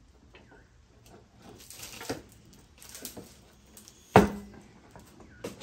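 Steel bead-breaker arm of a Harbor Freight manual tire changer being worked down against a tire's sidewall: faint scraping and shuffling, then one loud sharp metal clunk with a short ring about four seconds in as the lever drops and the bead breaks loose, and a smaller knock near the end.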